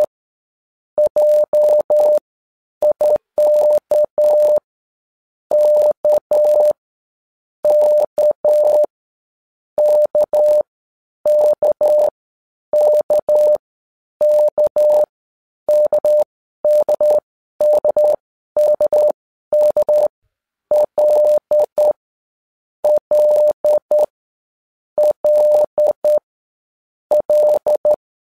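Morse code sent as a single steady beep tone, keyed into dots and dashes. The characters come one group at a time, each followed by a pause of about a second, about eighteen of them in steady succession.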